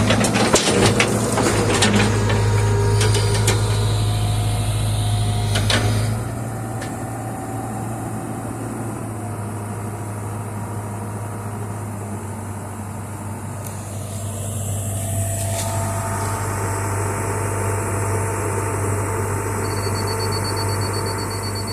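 An engine running steadily at a low idle, with a string of knocks and clanks over the first six seconds or so, then a steadier, slightly quieter run.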